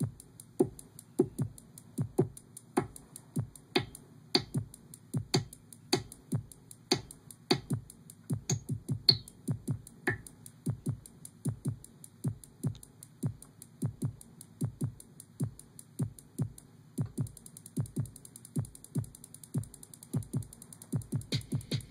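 Korg Electribe 2 drum machine playing a looped, sequenced electronic beat: a low hit about twice a second under fast, steady ticking hi-hats. Sharper clicks join the pattern for several seconds around the middle, and the hits come faster and the hi-hats thicken in the last few seconds.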